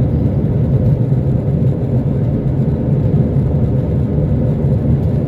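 Airbus A320 cabin noise in flight: a steady, loud, low rumble of the engines and rushing air heard from inside the cabin.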